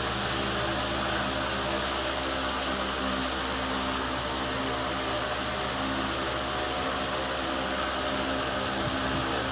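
Tron 60 cm wall fan running steadily: an even rush of air with a low, constant motor hum underneath.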